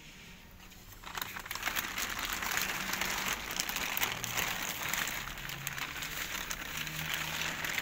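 Clear plastic sheeting crinkling and rustling as it is handled and pulled back, starting about a second in.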